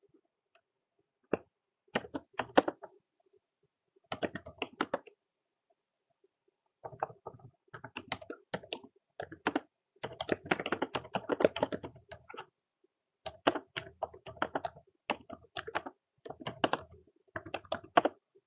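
Typing on a computer keyboard: rapid keystrokes in bursts of a second or two, broken by short pauses, the longest about a quarter of the way in.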